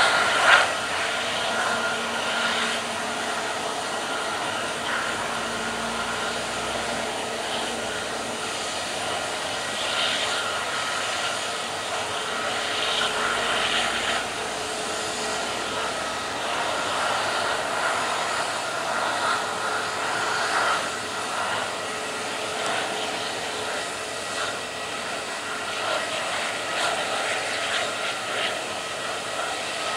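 Airbus A320neo's jet engines running at taxi idle as the airliner rolls slowly: a steady whine over an even rush of noise. A brief sharp knock about half a second in stands out above it.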